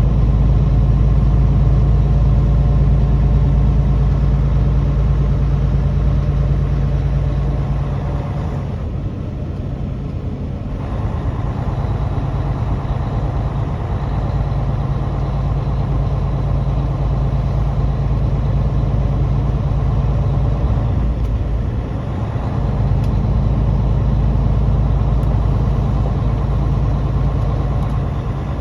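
Truck engine running steadily on the road, a low drone with road noise that eases off for a couple of seconds about nine seconds in and briefly again around twenty seconds in.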